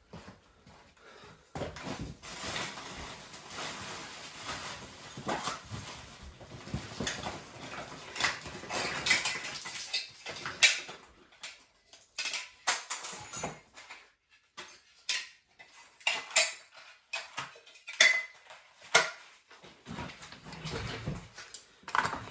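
Small metal tools and parts handled on a work surface: several seconds of rustling and scraping, then scattered sharp clicks and clinks.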